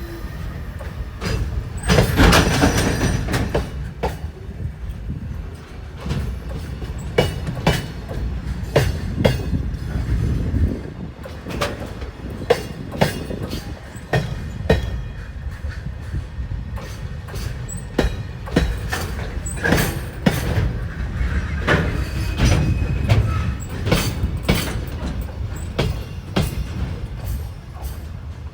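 Freight train rolling past, its wheels clicking over the rail joints in quick pairs above a steady low rumble.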